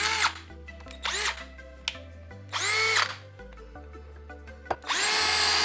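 Bauer 20V cordless drill, set to high speed, whining in three short bursts that spin up and wind down, then running steadily from about five seconds in as it bores a hole with a quarter-inch bit.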